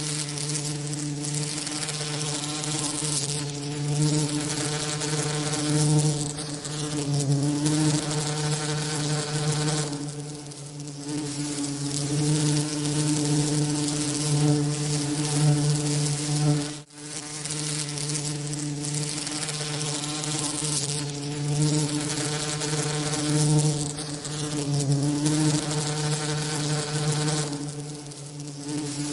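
Bees' wings buzzing: a steady low buzz with a hiss spread over it, swelling and fading a little in loudness. There is a momentary gap about seventeen seconds in.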